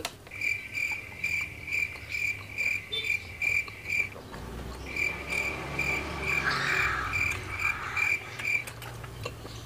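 A cricket chirping in an even rhythm of about three high chirps a second, stopping for about a second around four seconds in and then starting again.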